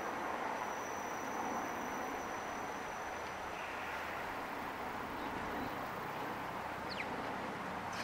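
Steady outdoor background hiss, with a thin high whine through the first half and one quick falling chirp about a second before the end.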